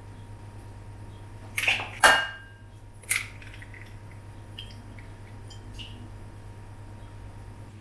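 Kitchen dishes and utensils clinking. There is a quick pair of clinks about one and a half to two seconds in, the second the loudest and ringing briefly, and another clink about three seconds in. After that come only a few faint small clicks over a steady low hum.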